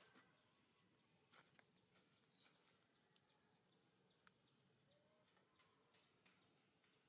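Near silence: faint outdoor background with many soft, short, high chirps from small birds scattered throughout.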